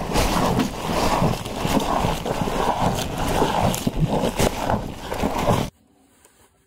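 Cow munching leafy greens close up: irregular crunching and rustling of the leaves as it eats, cutting off abruptly near the end.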